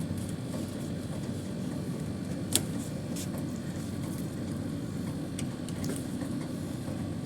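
Steady low background rumble with one sharp click about two and a half seconds in.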